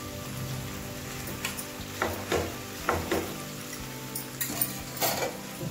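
Boiled noodles tipped from a stainless-steel strainer into a frying pan of vegetables, with several sharp knocks of the strainer and wooden spatula against the pan, starting about two seconds in, and light sizzling.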